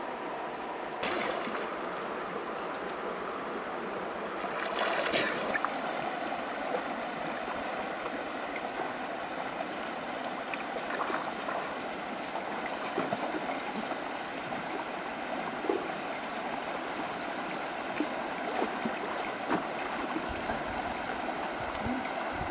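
Steady rushing of flowing river water, with a few brief splashes or knocks about one and five seconds in.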